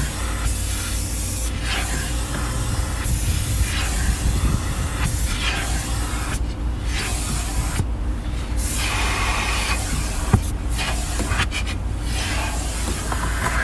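Wind rushing in through an open car window while driving, buffeting the microphone in gusts over a low road rumble.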